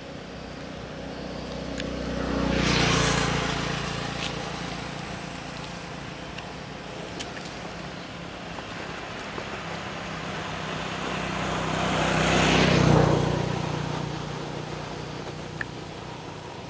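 Two road vehicles passing one after the other, each swelling and then fading over a few seconds; the second, about ten seconds after the first, is the louder.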